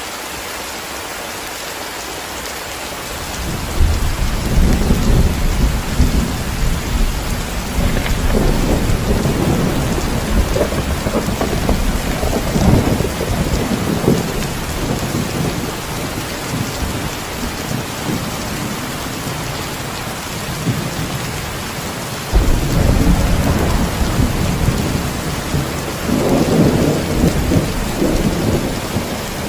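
Steady heavy rain hissing, with thunder rolling in suddenly about three seconds in and rumbling on in swells, and a second sharp peal of thunder about two-thirds of the way through.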